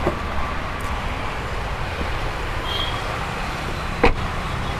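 Steady rumble of road traffic with a low hum, and a single sharp click about four seconds in.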